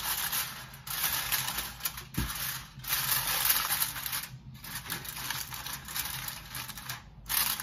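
Aluminium foil crinkling and crackling as it is pressed over a bowl and crimped around the rim, in a series of bursts with short pauses between them.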